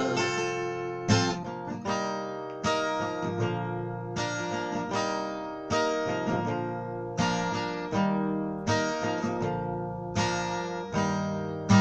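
Acoustic guitar playing an instrumental passage between verses of a song, with chords struck about once or twice a second and each left to ring out.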